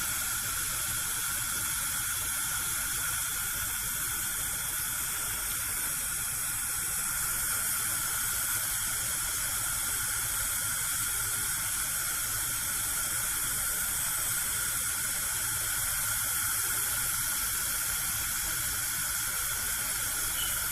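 Gas cooker burner hissing steadily, an even rushing noise that doesn't change.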